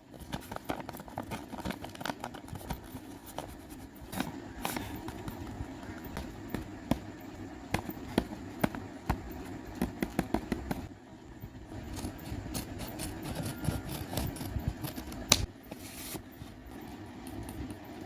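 Crackling and crinkling of a blind bag's plastic packaging as it is handled and opened, with many sharp irregular clicks.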